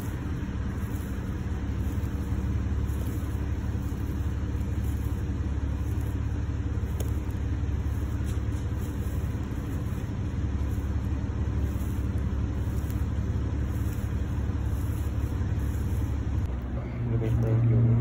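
A steady low rumbling hum, getting louder about a second before the end.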